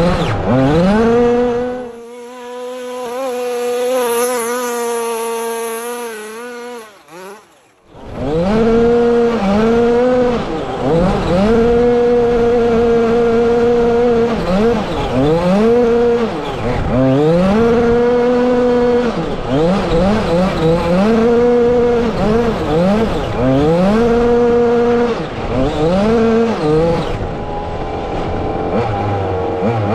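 Engine of a 1/5-scale RC rally car revving up and down over and over as it is driven hard on dirt. About two seconds in the sound goes muffled and steadier for several seconds and nearly drops out, then comes back at full level.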